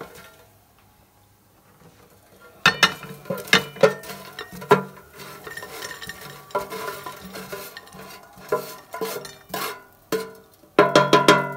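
Wooden spoon scraping and knocking inside a non-stick air fryer basket as crisp-fried chicken pieces are stirred, then tipped out and clattering onto a ceramic plate. A dense run of knocks comes near the end.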